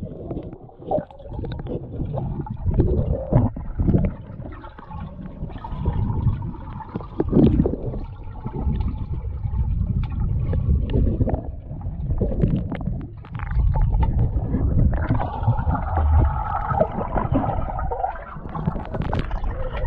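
Muffled underwater sound picked up by a camera held beneath the surface of a swimming pool: low rumbling and gurgling of moving water and bubbles, with frequent dull knocks.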